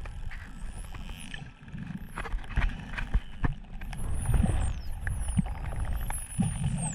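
Dolphin calling: high whistles that glide up and down, mostly in the second half, among scattered sharp clicks, with a rapid run of clicks near the end, over a low rumble.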